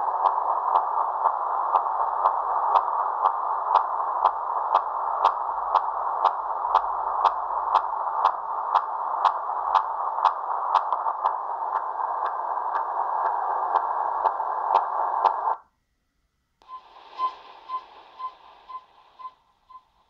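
CODAR long-range ocean surface radar signal received on a shortwave radio in lower sideband at 13,495 kHz: a steady hiss with evenly spaced ticks, about two and a half a second. About fifteen seconds in it cuts off as the radio changes mode, then comes back fainter as short, evenly spaced pips.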